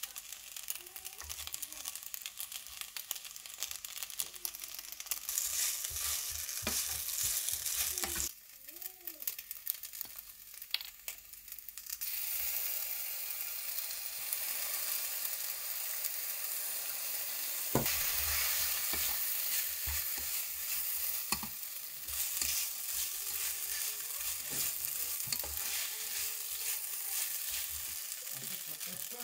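Food sizzling as it fries in a pan while being stirred, with a few clicks of the utensil. The sizzle drops off about eight seconds in and comes back louder around twelve seconds.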